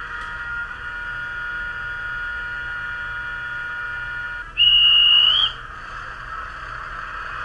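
Märklin mSD3 sound decoder in a model BR 218 diesel locomotive playing its diesel running sound through the loco's small speaker as a steady drone. About four and a half seconds in, a loud, high whistle tone sounds for about a second, rising slightly at its end, and the drone carries on after it.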